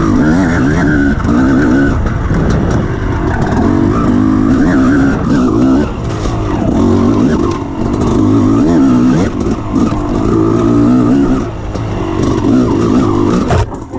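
Off-road motorcycle engine revving up and down as the bike is ridden along a rough dirt trail, its pitch rising and falling every second or two. Short knocks and rattles from the bumps run through it, and the sound drops away briefly near the end.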